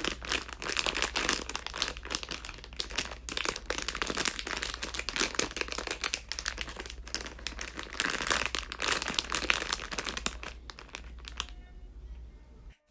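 Crinkly packaging being handled and crumpled, a dense run of crackling that eases off near the end and then cuts off suddenly.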